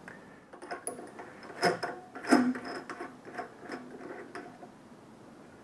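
Scattered light metallic clicks and knocks from hands working parts on a drill press head near the chuck, the loudest about two and a half seconds in.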